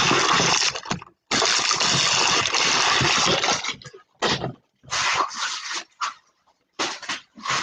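Trading card pack wrappers crinkling and tearing close to the microphone as packs are opened. The crinkling is loud and continuous at first, breaks off briefly about a second in, then comes in short irregular bursts of rustling.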